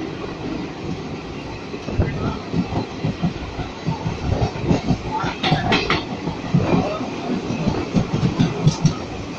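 Passenger coaches of a passing Indian express train rushing by close at hand, their wheels clattering over the rail joints in irregular knocks. A brief, harsher high-pitched sound comes about halfway through.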